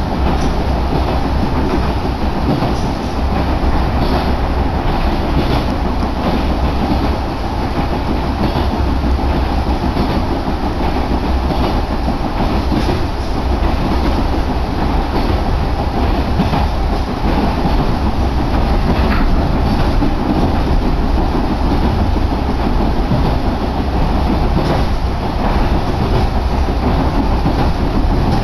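Electric local train running at speed, heard from inside the passenger car: a steady rumble of wheels on track, with the clickety-clack of the wheels passing over rail joints.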